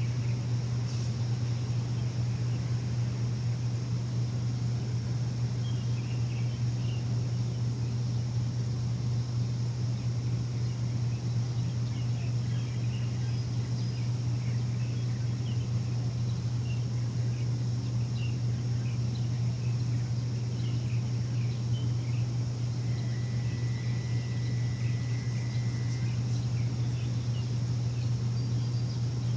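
A machine's steady low hum, with birds chirping now and then over it. A thin, steady higher tone sounds for about three seconds near the end.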